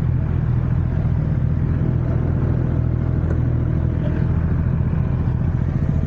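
Kawasaki Z900 inline-four motorcycle engine running at a steady throttle while riding, a constant low drone with no revving up or down.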